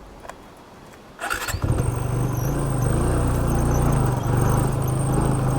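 Motorcycle engine started about a second in with a short burst of the electric starter, then running steadily at idle.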